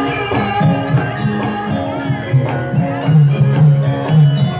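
Javanese gamelan music for a lengger dance: struck metal keyed percussion ringing out held notes, with drum strokes in a steady rhythm.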